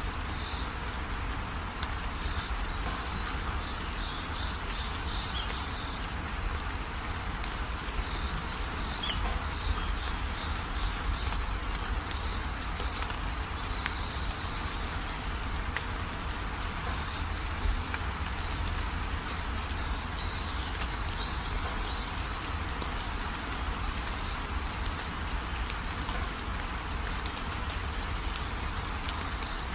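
Steady rain-like hiss with birds chirping at intervals.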